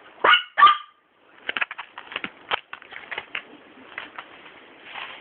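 A Papillon puppy gives two short high yips in the first second, then small clicks and scratches follow.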